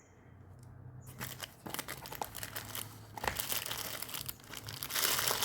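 Packaging crinkling as it is handled and unwrapped, starting about a second in and growing louder near the end.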